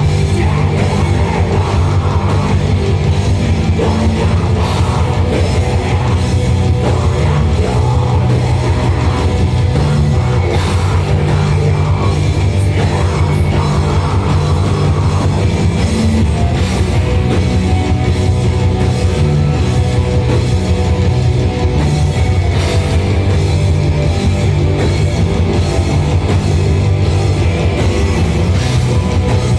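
Live metal band playing loud, dense music over a drum kit keeping a fast, steady beat.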